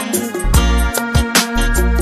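Intro music with a steady, driving beat: sharp drum hits, deep bass and held melodic notes.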